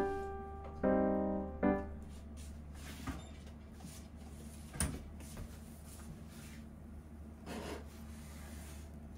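Piano background music that ends about two seconds in. Then a quiet kitchen with a steady low hum and a few light clicks and knocks of things being handled.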